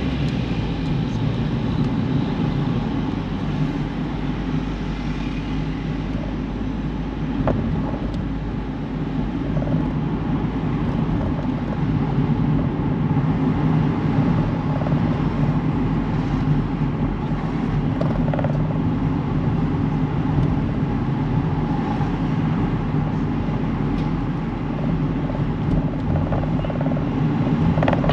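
A car being driven, with a steady low rumble of engine and road noise.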